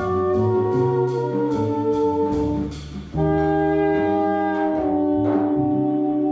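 Live contemporary jazz quartet: alto and tenor saxophones holding long notes together over double bass, with drum cymbals. About three seconds in the music thins for a moment, then both saxophones come back in on a long held chord.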